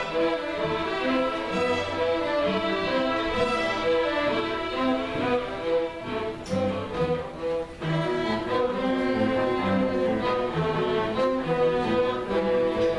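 Bowed string ensemble playing, violins and cellos holding sustained notes over a moving lower line.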